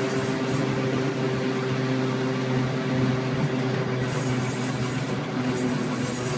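Glasgow single-deck electric tram running steadily along the track, heard from its open front platform. It gives a constant hum with a steady low whine over the rumble of wheels on the rails.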